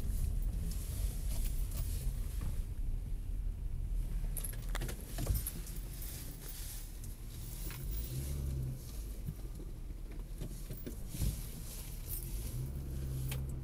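Car driving slowly, heard from inside the cabin: a steady low engine and road rumble, with scattered light clicks and rattles throughout.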